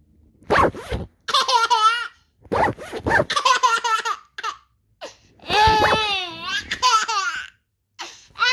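A clothing zipper zipped in short scratchy pulls, three times, each answered by a 10-month-old baby's laughter.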